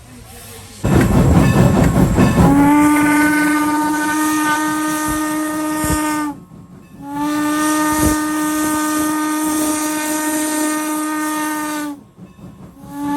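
Steam locomotive letting off a loud hiss of steam, then sounding its whistle in two long, steady blasts of about four seconds each, with a third blast starting near the end; the steam hiss carries on beneath the whistle.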